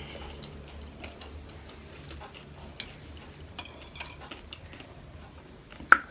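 Close-miked eating of crunchy panipuri and chatpate: soft scattered crunches and mouth clicks, with a small cluster about four seconds in and one sharp, loud click near the end.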